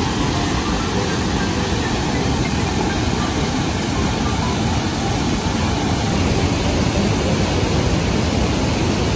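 Waterfall in spate after heavy rain: a loud, steady rush of fast, heavy water.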